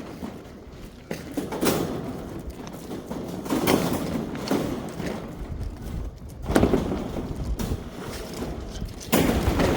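Irregular thumps, knocks and scraping of building materials being moved and set into place, with louder hits at several points and a strong one near the end.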